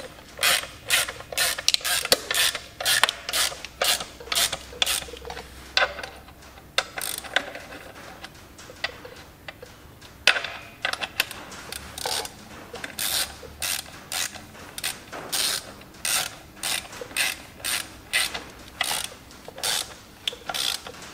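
Ratchet spanner clicking in quick runs of short back-and-forth strokes as the clutch cover bolts of a Massey Ferguson 135 dual clutch are drawn down, clamping the pressure plate to the flywheel. The clicking pauses briefly near the middle.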